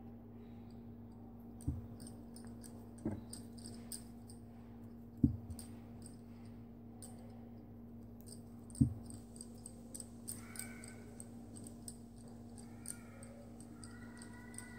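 Metal knitting needles clicking faintly as they work yarn, with four dull thumps in the first nine seconds, over a steady low hum. A faint high-pitched call sounds twice in the second half.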